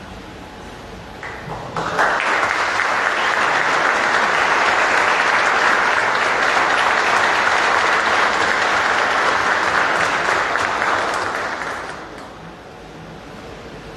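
Audience applauding, starting suddenly about two seconds in, holding steady for about ten seconds and dying away near the end.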